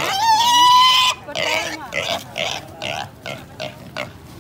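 Black piglet squealing as it is held by a hind leg: one loud squeal that rises and then holds steady for about a second, then a quick run of shorter, quieter squeals, two or three a second.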